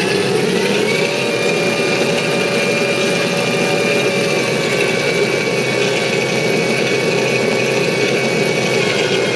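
Simulated M1A2 Abrams gas-turbine engine sound played through an RC tank sound board's speaker: a steady whine that rises slightly about a second in and eases back down later.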